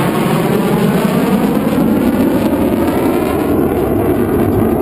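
Belgian Air Force F-16's single turbofan engine, a loud steady jet roar with a slow, sweeping shift in its tone as the fighter flies its display.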